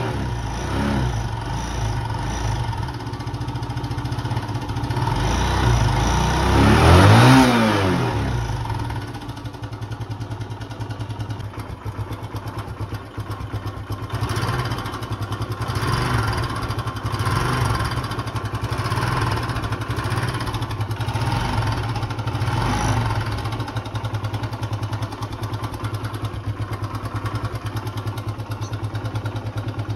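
TVS Fiero F2's 150cc four-stroke single-cylinder engine idling through its exhaust, with one throttle blip about seven seconds in that rises and falls back. It then settles into a steady idle with a few small rises in engine speed.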